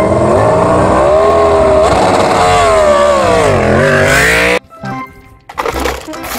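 Petronas Yamaha MotoGP racing motorcycle's engine revving as the bike pulls away, its pitch wavering, dipping, then climbing sharply before it cuts off about four and a half seconds in. Quieter background music follows.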